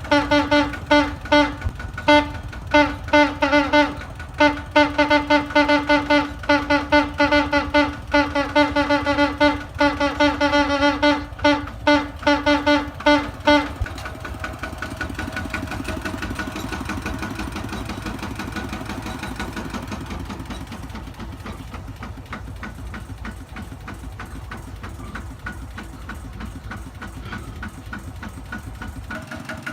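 Kubota tractor's truck-style horn sounded in many short, quick blasts of one pitch for about fourteen seconds. Then the tractor's diesel engine idles steadily with a light regular knock.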